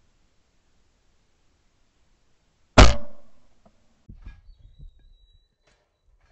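A single 12-bore shotgun shot from a Browning 525 over-and-under about three seconds in: a sharp report that fades within about half a second, the shot that breaks the clay target. A few faint clicks follow.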